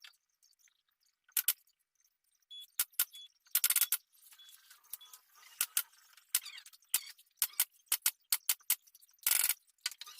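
An irregular run of sharp clicks and light metallic clinks of hard objects being handled, a dozen or more, some with a brief ring.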